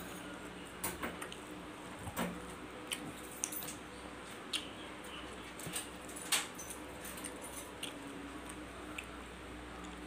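Stainless steel knife and fork clinking and scraping on a plate in scattered sharp clicks, with mouth sounds of eating, over a low steady hum.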